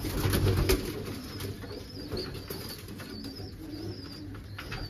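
Domestic pigeons cooing in a small loft, with a burst of wing flapping in the first second as a pigeon flies off its perch.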